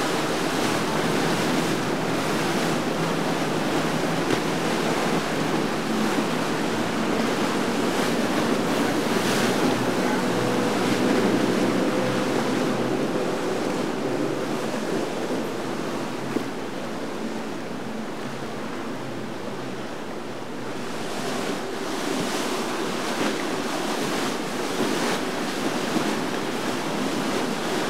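Churning, choppy canal water with wind buffeting the microphone, and a faint low boat-engine hum underneath.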